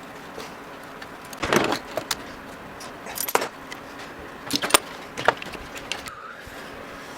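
Small metal parts and tools clinking and clattering as they are handled, in a handful of separate knocks with short pauses between them.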